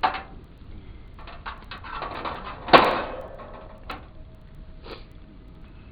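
Handling knocks and clatter: a sharp knock at the start, a quick run of small clicks, then one loud clank about three seconds in that leaves a ringing tone, and two lighter knocks after it.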